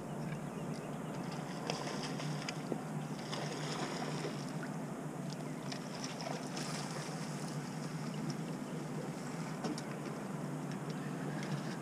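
Steady low rumble of river water with wind on the microphone, and a few faint small clicks and scrapes.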